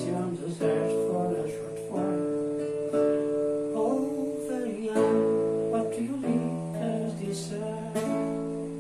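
Instrumental acoustic guitar music, plucked and strummed notes with held chords, slowly fading toward the end.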